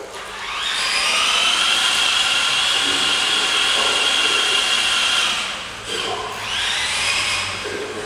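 Electric drive motors of a small wheeled robot whining. The pitch rises as it speeds up, holds steady for several seconds, falls, then rises again.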